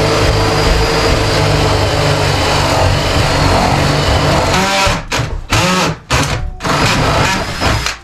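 Cordless drill boring into wooden wall framing, running steadily under load. For the last three seconds it runs in short on-off bursts, the motor's pitch rising and falling with each.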